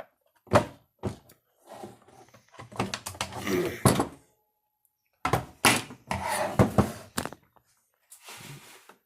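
Knocks, clunks and rattling of chainsaw parts and tools being handled and set down during disassembly, in two clusters with a softer rustle near the end.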